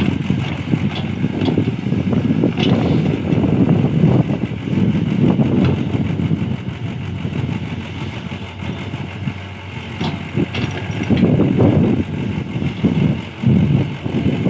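Hyundai 80 SMART excavator's diesel engine running under working load, its sound swelling and easing repeatedly, with a few short sharp knocks.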